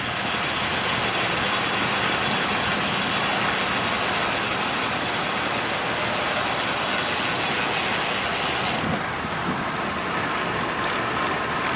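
Road bike's rear freehub ratcheting in a steady buzz while the rider coasts, over road and wind noise. The buzz drops away about nine seconds in.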